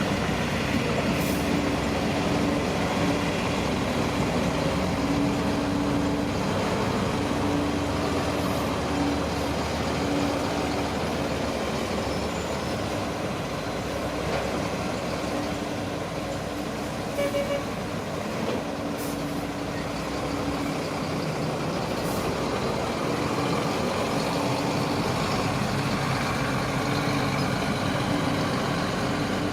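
Shantui crawler bulldozer's diesel engine running steadily, its note swelling and easing, with a few sharp knocks.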